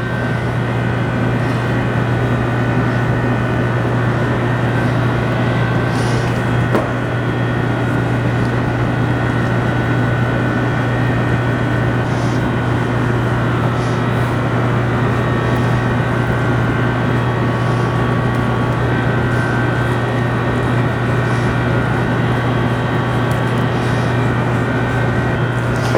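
Steady mechanical drone with a strong low hum, like a fan or ventilation unit running. It fades in at the start and cuts off at the end, with a few faint ticks over it.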